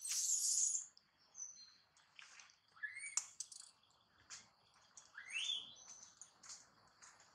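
High-pitched animal calls: short whistled chirps and two squeaky calls that rise in pitch, about three and five seconds in. A loud hissing burst comes right at the start.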